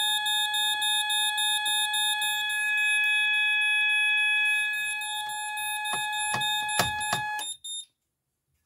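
Moose Z900 burglar-alarm panel in alarm: a steady high-pitched tone with a rapidly pulsing beep over it. Several clicks come near the end, and then the alarm cuts off suddenly about seven and a half seconds in.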